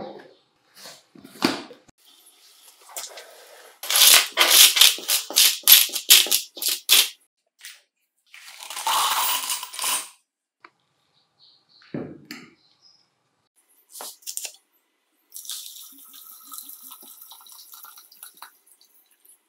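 Small metal parts clattering against each other and into a plastic jar, with a rush of parts sliding in from a plastic scoop about halfway through. Near the end, liquid is poured from a bottle into the jar.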